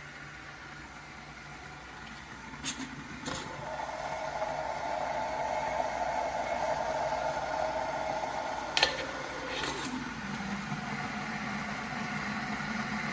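Electric gooseneck kettle in use: two clicks, then a steady hum of the water heating. Another sharp click comes about nine seconds in, and the hum drops to a lower pitch and carries on.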